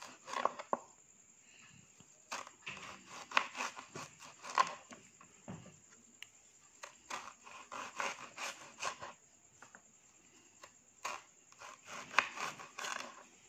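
Kitchen knife slicing through a peeled raw banana onto a chopping board: short scraping strokes, with the blade tapping the board, in several bursts separated by pauses.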